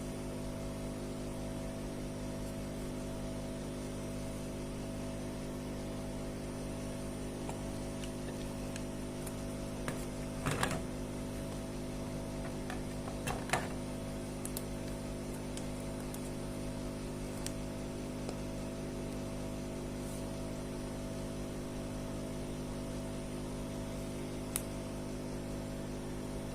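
A steady electrical hum, with a few light clicks and taps about ten and thirteen seconds in and single ticks later on.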